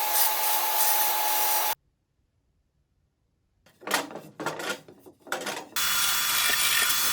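Table saw running and cutting wood, a steady whine over dense noise, cut off suddenly a little under two seconds in. After a short silence come a handful of uneven rubbing strokes, then a steady high hiss starts near the end.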